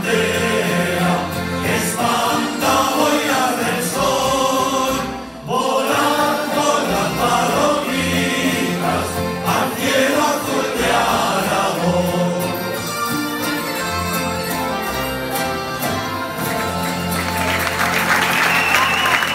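Aragonese folk group performing live: men's voices singing together over plucked string instruments and accordion, with a brief break about five seconds in. Near the end the song finishes and the audience breaks into applause.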